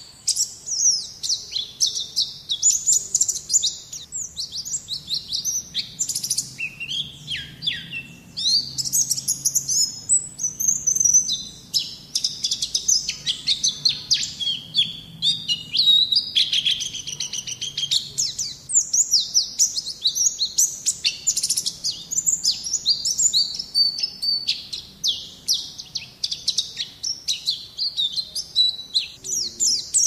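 White-eye (Zosterops, the Indonesian 'pleci') singing a rapid, continuous high twittering song of quick chirps and trills.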